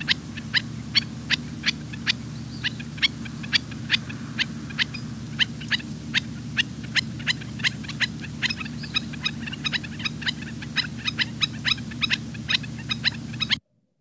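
Recording of a black-necked stilt calling: a long series of short, sharp notes, about three a second, over a steady low hum.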